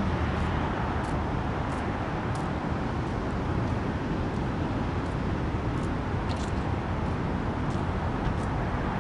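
Steady outdoor background noise, a low rumble with a hiss over it, like distant traffic. Faint short high ticks are scattered through it.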